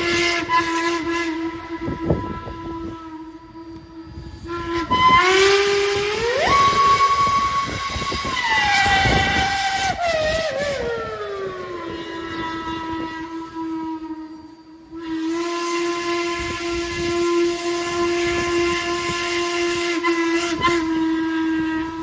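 Steam locomotive chime whistle sounding several notes at once in long blasts. The pitch slides up about five seconds in and glides back down a few seconds later, as the whistle cord is worked. After a short break, another long, steady blast follows.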